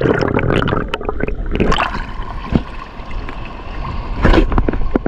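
Seawater sloshing and gurgling around a half-submerged action camera as it dips under the surface and back out, with knocks of water against the housing. It is louder about four seconds in.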